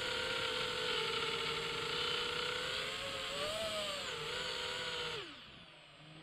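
FPV quadcopter's brushless motors and propellers whining steadily over wind rush, the pitch wavering about three and a half seconds in. A little past five seconds the whine falls away in pitch and level as the motors lose power after a sudden battery voltage drop from a failing LiPo.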